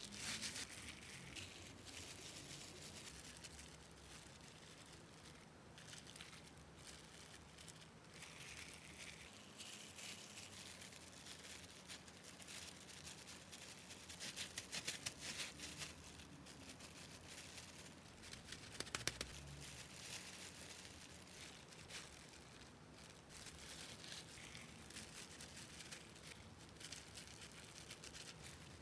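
Faint crinkling of clear plastic disposable gloves as gloved hands press and shape damp mixed-grain rice into a rice ball, with a louder flurry of crinkles around the middle.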